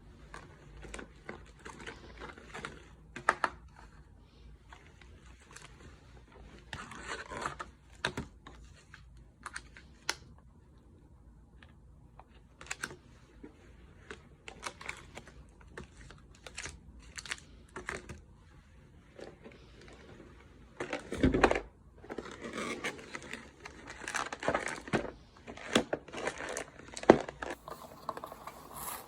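Burning firewood crackling, with irregular sharp pops and snaps and a denser burst of crackles about two-thirds of the way through.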